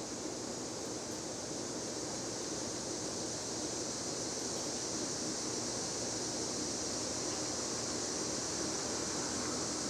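40-inch ceiling fan running on high speed: a steady rush of moving air with a faint low motor hum under it.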